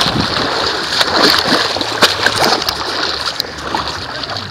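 Muddy water splashing and sloshing close to the microphone, with many small irregular splashes, as someone moves through a water-filled obstacle pit.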